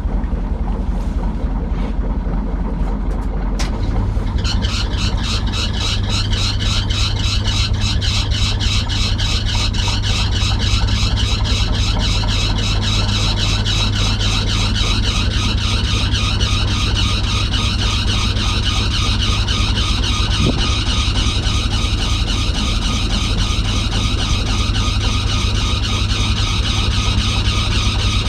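Boat diesel engine running steadily. About four seconds in, a second machine starts up with a fast, even beat and a hiss, and keeps running.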